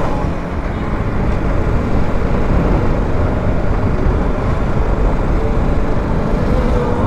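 Steady riding noise from a BMW G310 GS single-cylinder motorcycle cruising at speed on an open road: rough wind rush over the engine and tyre noise, without change.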